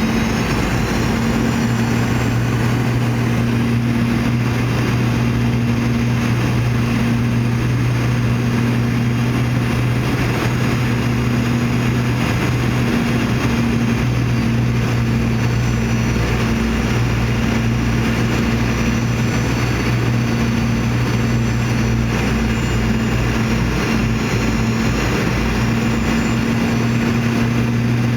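Cabin noise of a Boeing 717-200 in flight: the steady drone of its rear-mounted Rolls-Royce BR715 turbofans and the airflow, with a strong low hum and a faint high whine over it.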